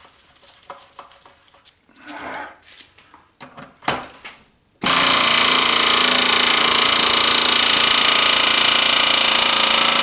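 A few light clicks of parts being handled, then a power tool starts suddenly about five seconds in and runs loudly without a break, working a stuck part on a Briggs & Stratton lawnmower engine loose.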